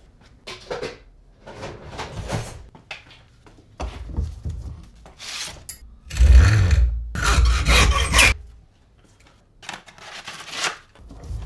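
Hand saw cutting a small block of wood held in a bench vise. A short run of rasping strokes about six seconds in is the loudest part, after scattered handling and clattering sounds.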